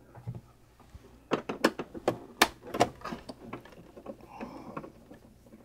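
A run of sharp plastic clicks and knocks from inside an Epson WF-4740 inkjet printer as its raised scanner unit's prop rod is worked loose, clustered from about a second in to about three seconds in, with scattered lighter taps after.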